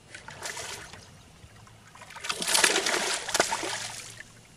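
A hooked bass thrashing and splashing at the water's surface while being played on a rod: a short splash about half a second in, then a longer, louder bout of splashing from about two seconds in that dies away near the end.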